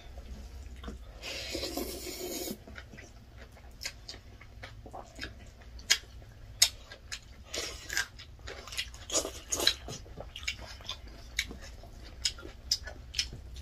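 Close-miked eating sounds from two people eating rice and chicken by hand: chewing with many sharp, irregular mouth clicks and smacks, and a noisier stretch of about a second near the start.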